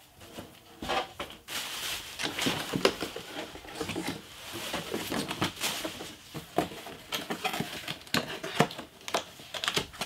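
Bubble wrap and plastic packaging crinkling and rustling as it is pulled out of a cardboard box, with many small sharp crackles and taps.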